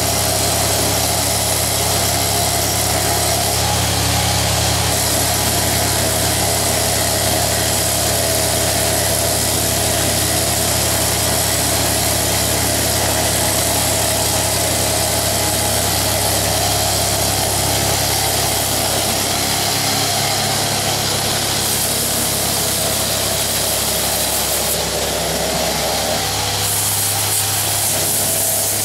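Continuous noise of power tools at work on a steam locomotive, a dense hiss over a steady mechanical hum.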